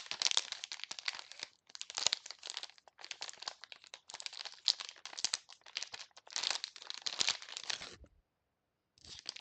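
Plastic snack packet crinkling and crackling as it is handled and pulled open, in irregular runs with short pauses and a break of about a second near the end.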